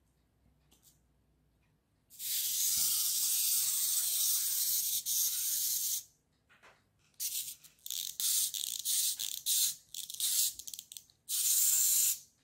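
Small wind-up clockwork motor of a toy elephant running and whirring as the elephant walks. It runs steadily for about four seconds, then in short stop-start bursts, then once more for about a second near the end.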